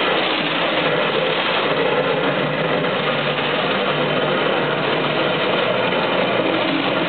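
Fire hose spraying a steady jet of water, over the steady running of an engine.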